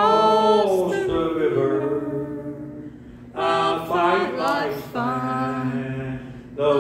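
Voices singing a slow gospel hymn in long, held notes, with a short lull in the middle between phrases.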